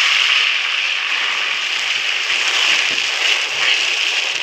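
Loud, steady sizzling and hissing as milk-soaked semolina hits hot ghee and golden caramelized sugar syrup in the pan and boils up in steam.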